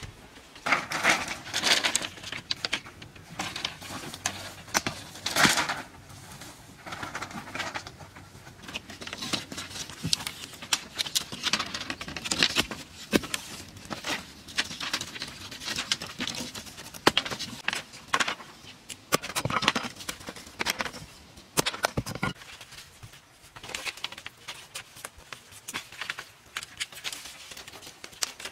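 Hand work with bamboo: poles and thin strips clattering, rustling and knocking as they are handled and lashed to a wooden frame, in irregular bursts with sharp clicks scattered through.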